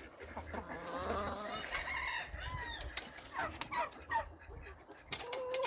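Chickens clucking and calling, with a longer wavering call in the first couple of seconds and a few short calls after it. A few sharp knocks come near the end.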